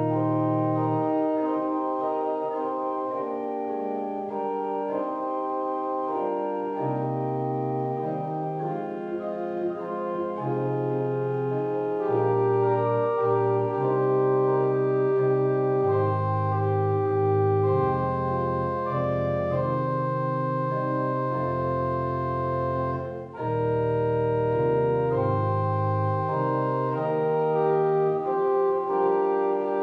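Organ playing a slow hymn tune in sustained chords. A deep pedal bass drops out and comes back, and there is a brief break between phrases about two-thirds of the way through.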